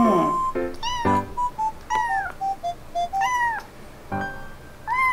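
A young kitten meowing over and over: four high calls about a second apart, each rising and falling in pitch. These are a newly woken kitten's crying calls for its missing owner. A simple melody of held notes plays in the background.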